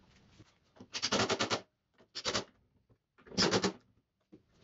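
Plywood strip with protruding screw tips pressed against and lifted off a plywood slide: three short bursts of wood scraping and rattling, about a second apart.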